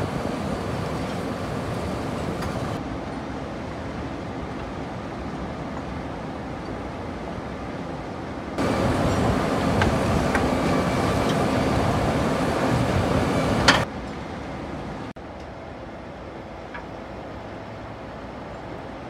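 Bucket wheel excavator at work: a steady mechanical running noise that changes abruptly at several cuts. It is loudest in a stretch in the middle, where the bucket wheel is digging, with a sharp clank near the end of that stretch.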